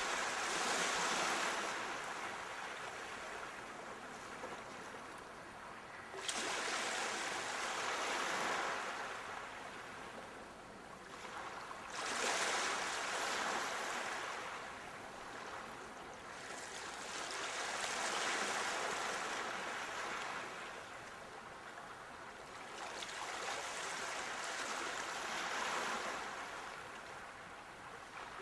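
Sea waves breaking on a shore, one roughly every five to six seconds: each wave comes in as a sudden surge of hiss that slowly fades as it washes back.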